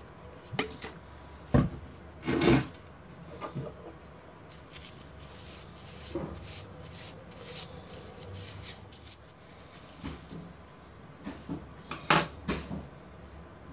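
Steel lathe chuck parts and bevel gears being handled and set down on a wooden workbench: scattered knocks and clunks, the loudest about a second and a half in, again around two and a half seconds, and near the end. Softer rubbing of paper towel on the metal fills the quieter middle.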